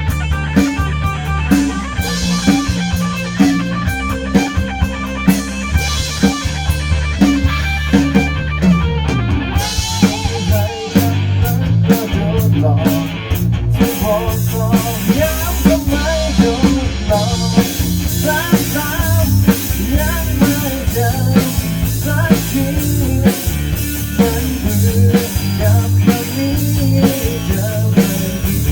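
Rock band playing an instrumental passage: drum kit keeping a steady beat under bass and electric guitar, with a lead guitar line coming in about ten seconds in.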